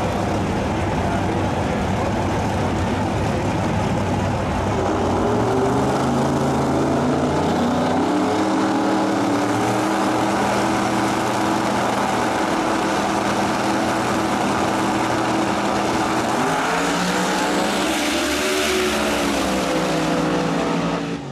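Two no-prep drag racing cars running loudly in the staging lanes, their engines then held at a steady high rpm on the line for several seconds. About three-quarters of the way through, both launch at full throttle, engine pitch rising as they pull away down the track.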